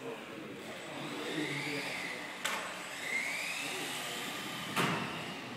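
Electric motor of a radio-controlled model car whining and rising in pitch twice as it accelerates, with two sharp knocks, the louder one near the end.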